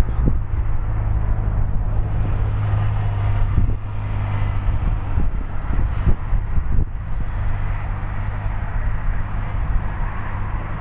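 Wind buffeting the microphone: a loud, steady low rumble with irregular gusts.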